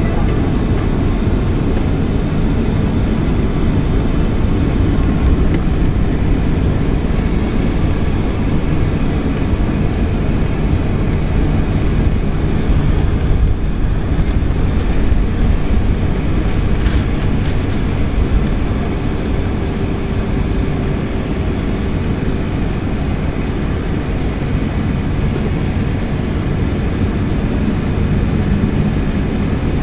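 Cabin noise inside a Boeing 757-200 on the ground before takeoff: a steady low rumble from the jet engines and airframe, with a faint low hum and a click or two.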